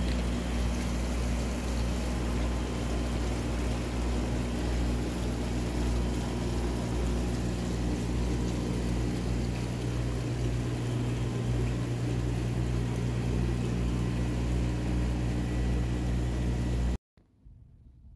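Seafood-market machinery humming loudly and steadily, a constant low-pitched drone with a hiss over it. It cuts off suddenly near the end.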